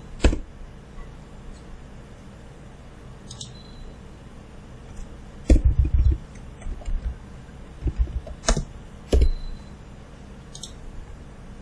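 Scattered sharp clicks from a computer mouse and keyboard, irregular, with a small flurry about halfway through, as a file is saved and named.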